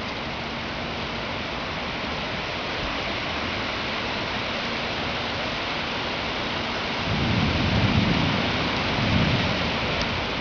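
Heavy rain falling steadily, with a low rumble of thunder coming in about seven seconds in and swelling twice before easing.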